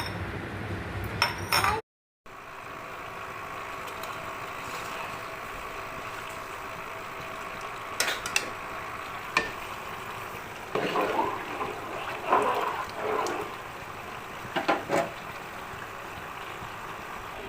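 Food frying in a pan with a steady sizzle. Metal utensils clink and scrape against the pan and dishes a few times, mostly in the second half.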